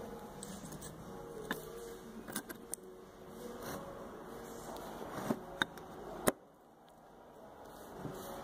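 Sharp metallic clicks and taps as a new rear brake pad is pressed and seated into a caliper mounting bracket by hand. There are about eight clicks, the loudest about six seconds in, over a low background hum that drops away after that click.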